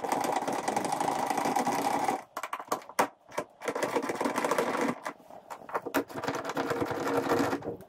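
A hex driver turning out the small hex screws that hold a roof rack rail down, giving runs of fast mechanical ticking in three spells with a sharp click between the first two.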